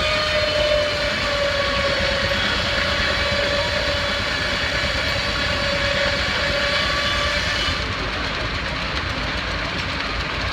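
Steam whistle blowing one long, steady note for about eight seconds, then cutting off, over the steady low rumble of running machinery.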